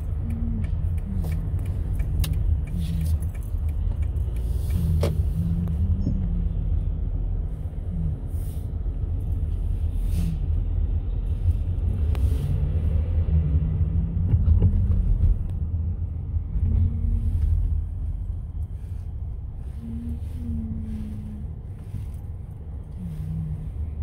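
Street traffic with a steady low rumble, as a semi-truck with a box trailer drives past close by. Its engine and tyres are loudest a little past halfway, then fade.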